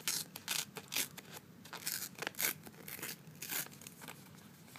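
A Yu-Gi-Oh promo card pack wrapper torn open by hand: a run of short, irregular ripping and crinkling crackles.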